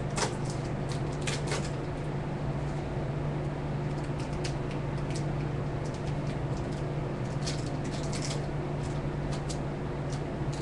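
Scattered light clicks and rustles from a spool of fishing line and rods being handled, over a steady low hum.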